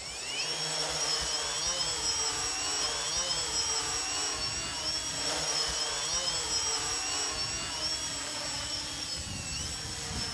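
Home-built quadcopter drone's four brushless motors and propellers whining as they spin up and lift it off, the pitch rising at the start and then wavering up and down as the craft is held in a hover and flown. Gusty wind rumbles on the microphone underneath.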